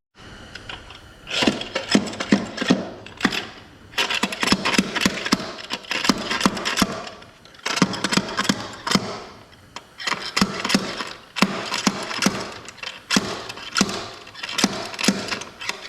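Hand tools working on a TorqueFlite automatic transmission during teardown: rapid metallic clicking and knocking in five bursts of a couple of seconds each, with short pauses between.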